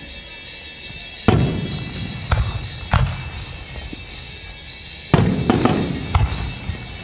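Aerial fireworks shells bursting overhead: a loud bang about a second in, two more soon after, then a quick cluster of three about five to six seconds in, each trailing off in a low rumble. Music plays underneath throughout.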